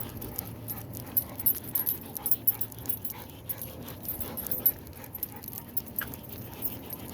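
Two large dogs walking on leash during a cool-down after a run, with irregular clicking and jingling of their leash gear.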